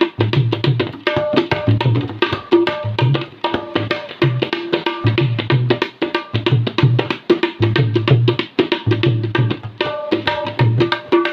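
Tabla played to imitate a Punjabi dhol: rapid, dense strokes on the treble drum over deep, booming bass-drum strokes that recur about once a second in a steady driving rhythm.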